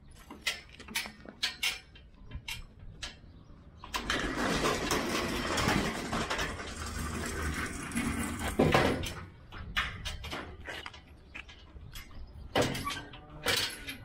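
Scattered footsteps and knocks around a steel cattle gate being worked open. A dense rushing noise comes in about four seconds in and lasts about five seconds.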